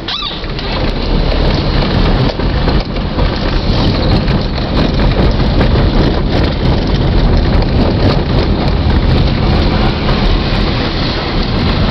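Car driving over a rough unpaved gravel track, heard from inside the cabin: a steady loud rumble of engine and tyres with constant rattling, clicking and crunching from the bumpy surface.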